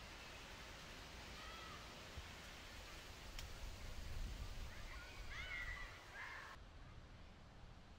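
Faint outdoor ambience with birds calling in short arched notes, a couple about two seconds in and a busier cluster of calls around five to six seconds in, over a low rumble. The background cuts to a duller hiss about six and a half seconds in.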